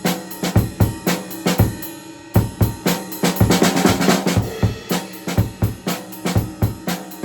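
Acoustic drum kit played live: a steady groove of kick and snare strokes, a brief gap about two seconds in, then a run of rapid strokes around the middle before the groove picks up again.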